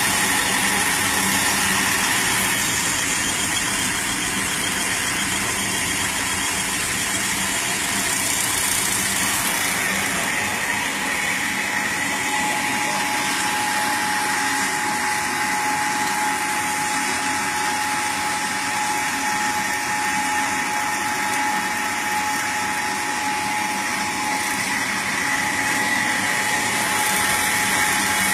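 Fish feed pellet machine running: a steady mechanical drone with a high whine, joined by a second, lower steady tone about twelve seconds in.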